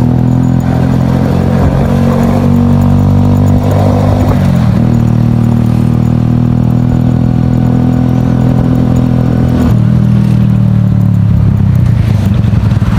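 Honda motorcycle with a loud modified exhaust, heard from the rider's seat while riding at low speed. It gives a steady, loud engine note that dips briefly about four seconds in and steps lower near ten seconds.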